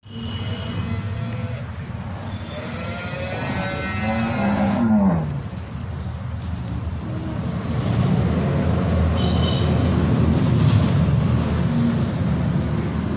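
A cow mooing once, a long call of about two and a half seconds that drops in pitch at the end, about three seconds in. A low, steady rumble fills the second half.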